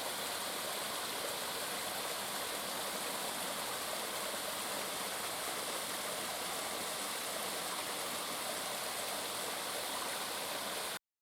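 Steady rushing noise like running water, with no distinct calls, cut off abruptly near the end.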